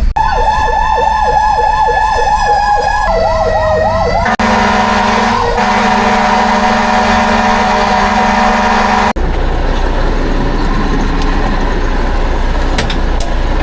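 Fire truck siren yelping in a fast warble, about four cycles a second, shifting to a lower pitch about three seconds in. It breaks off into a steady blare of about five seconds, which cuts off suddenly, leaving steady traffic and engine noise.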